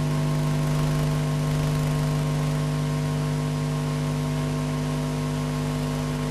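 Steady electrical hum and hiss on the audio track of an old videotape under the studio slate, a buzz of several fixed tones with no change.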